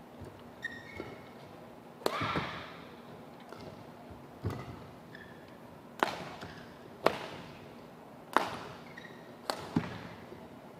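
Badminton rally: rackets striking the shuttlecock in a fast exchange, about seven sharp hits roughly a second apart. Court shoes squeak briefly on the floor between the hits.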